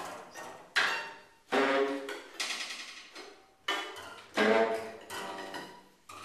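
Free improvised music by a quartet of baritone sax, double bass, drums and mandolin, played as sparse, separate accents: about five sudden attacks, each a cluster of pitched tones that dies away within a second.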